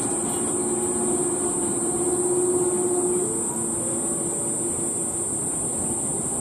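Street ambience beside a tram stop where an old Toyama streetcar stands: a steady low hum stops a little after halfway, over a continuous high-pitched buzz and general traffic noise.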